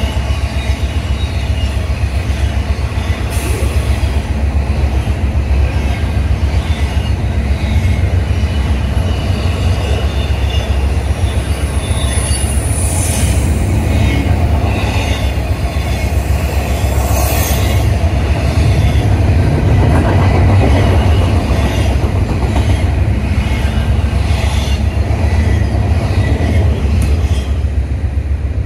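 Cars of a CSX manifest freight train rolling past close by: a steady rumble of steel wheels on rail with scattered clicks and clanks, and a brief high wheel squeal about halfway through.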